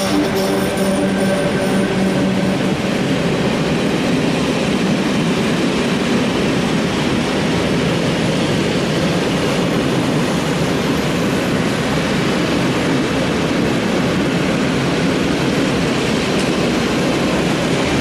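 A long freight train hauled by an ET22 electric locomotive rolls past with open wagons loaded with scrap. A steady hum from the passing locomotive fades out about two and a half seconds in, leaving the continuous rumble of the wagons' wheels on the rails.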